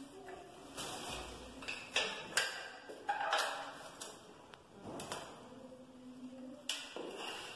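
Scattered clacks and short scrapes of a ruler and marking tools being set down and slid on a ceramic floor tile while a cut is measured out, about six knocks in all.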